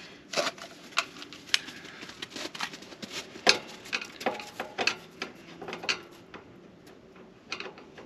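A screwdriver working a screw out of the top of a metal pellet stove vent pipe T: a run of irregular small metal clicks and scrapes, the sharpest about three and a half seconds in.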